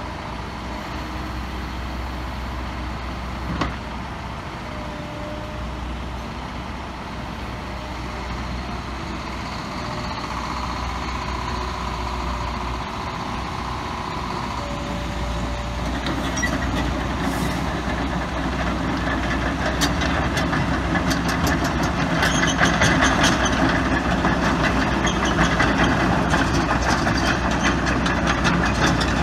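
Liebherr R924 crawler excavator's diesel engine running steadily as the machine slews and works its arm. About halfway through it gets louder, with a rapid clatter of its steel tracks as it drives off.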